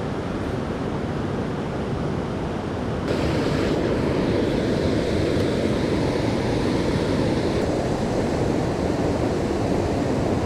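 Creek water rushing steadily over rocks, turning louder and fuller about three seconds in.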